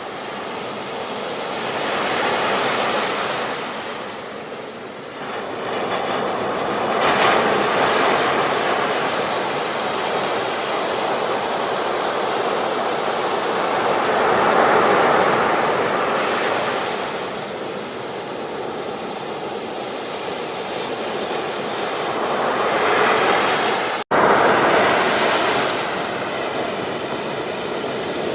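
Ocean waves breaking and washing onto a beach, the surf swelling and easing every several seconds, with a momentary dropout about three-quarters of the way through.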